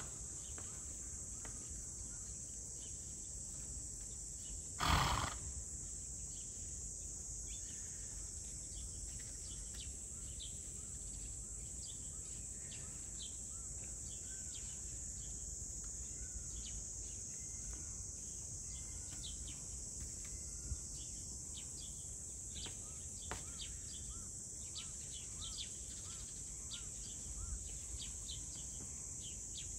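Outdoor zoo ambience: a steady high-pitched insect drone with scattered bird chirps, and one loud short animal call about five seconds in.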